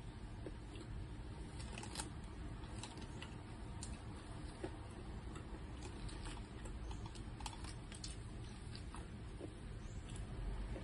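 Faint crinkling and small scattered clicks of fingers picking rice and fish out of a plastic-lined paper food wrapper, over a low steady room hum.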